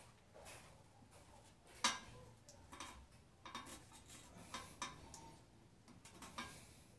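Scattered light clicks and clinks of hard objects against a ceramic toilet bowl as it is worked into place on its base, with one sharper knock about two seconds in.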